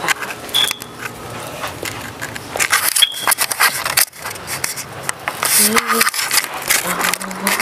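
Handling noise of a handheld camera being moved and rubbed against clothing: rustling and scraping. Short bits of voice come in over it about two-thirds of the way through.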